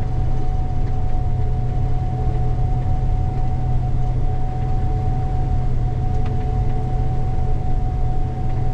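Gleaner combine running steadily, heard from inside the cab while it unloads soybeans into a grain cart: a constant low drone with a steady high whine over it.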